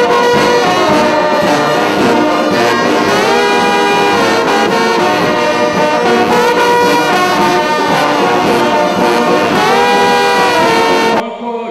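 Brass band of slide trombones, sousaphone and baritone horns playing a slow melody in held notes, with some notes sliding between pitches. It breaks off abruptly near the end.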